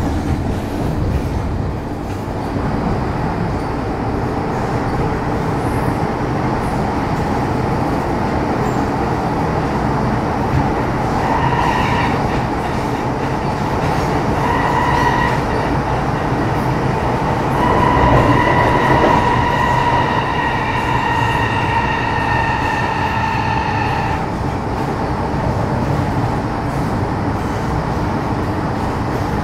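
Metro Cammell M-Train electric multiple unit (CT-Stock car C239, GEC GTO chopper) running, heard from on board as a steady rumble. A little over a third of the way in, a high whine with overtones comes in twice briefly, then holds for about six seconds and cuts off.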